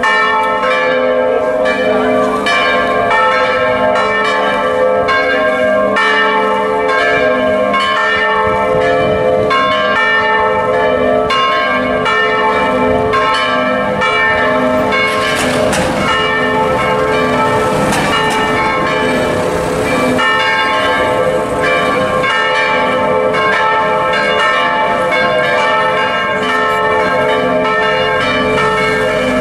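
Several church bells swung in their tower by electric motors, ringing together in a continuous peal, their strikes overlapping so densely that the ringing never pauses.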